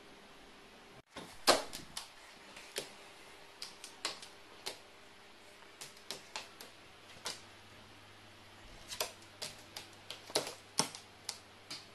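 A run of irregular sharp taps and clicks, about twenty in all, the loudest about a second and a half in, as a carrion crow moves about on a wooden board, with a steady room hum beneath.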